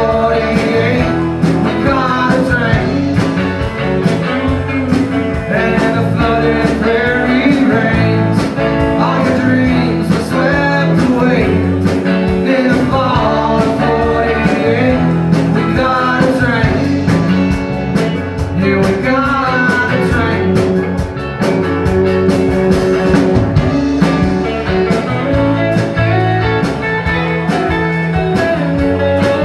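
Live band playing a blues/country-rock song with drums, bass, acoustic guitar and electric guitars, a melodic lead line bending over the steady groove.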